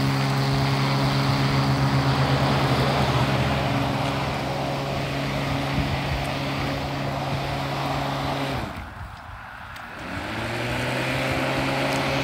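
Corded electric lawn mower's motor and blade running with a steady hum. About eight and a half seconds in it cuts out and goes quiet for about a second and a half, then spins back up to speed with a rising whine.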